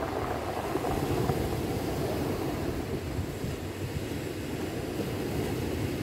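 Ocean surf breaking and washing up a beach of rounded cobbles: a steady rushing wash that swells and eases.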